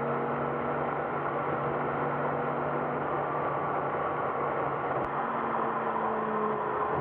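Car driving, its engine and road noise sped up three times: a steady drone with several humming tones that drift slowly in pitch. A faint click about five seconds in.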